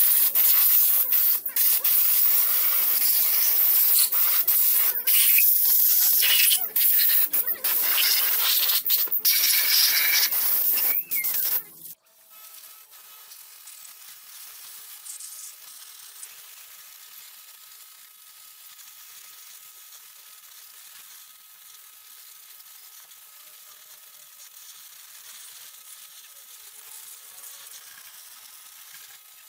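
Loud spraying hiss, like a high-pressure jet on metal parts, broken by many brief pauses and cutting off suddenly about twelve seconds in; after that only a faint steady hiss remains.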